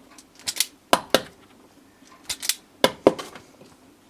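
Hand wire stripper stripping the insulation off cable ends, twice: each stroke is a brief rasp followed by two sharp clicks of the tool.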